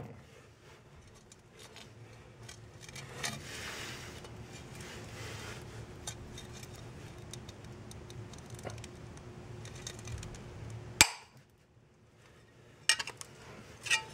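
Thin sheet glass, scored along a line, snaps with one sharp crack about eleven seconds in as gloved hands press on it. Before that come faint rubbing and handling sounds of gloves on the glass and cardboard, and near the end the broken pieces clink a couple of times.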